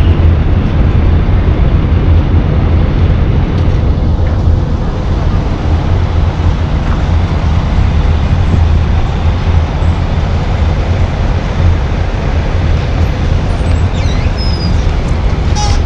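Large diesel buses idling, a steady low rumble mixed with street traffic noise, with a few short high squeaks near the end.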